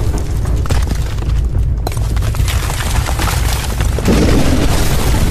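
Sound effect of a building collapsing: a heavy, continuous deep rumble with crackling, clattering debris, growing louder about four seconds in.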